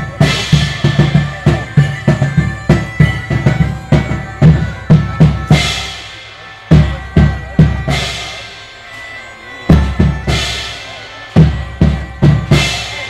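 Live band drumming: fast bass-drum and snare patterns with cymbal crashes. The beat breaks off a few times, leaving a crash ringing, before the drums come back in.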